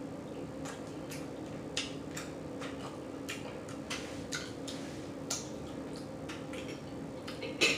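Close-miked mouth sounds of someone eating: chewing and lip smacking as a run of irregular wet clicks, a few a second, with the sharpest near the end. A faint steady hum runs underneath.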